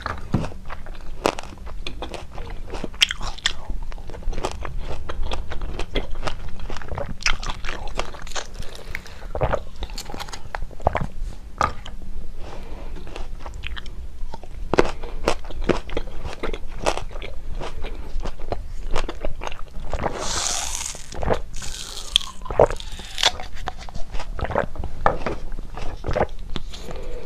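Close-miked eating and drinking mouth sounds: chewing, and sucking from the tips of large plastic syringes filled with a white filling, heard as many sharp, wet mouth clicks. There is a longer hissing slurp about twenty seconds in.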